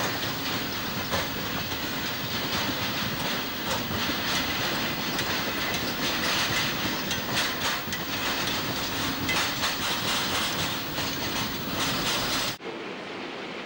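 Freight train wagons rolling past, a steady rushing noise with the wheels clicking over rail joints. The sound cuts off abruptly near the end to a quieter background.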